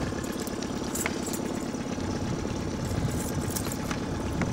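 Boat motor idling steadily, with a few faint clicks.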